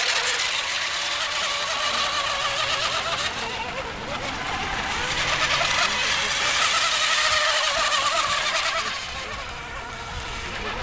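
Radio-controlled racing boat's motor running flat out, a high buzzing whine that wavers in pitch and swells and fades as the boat laps the course, loudest a little past the middle.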